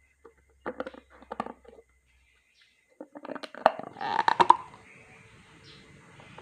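Kitchen cooking sounds for fried banana and hot cakes. A few sharp knocks of utensils come first, then a louder burst of crackling about three seconds in. The crackling settles into a faint steady hiss, typical of food frying in a pan.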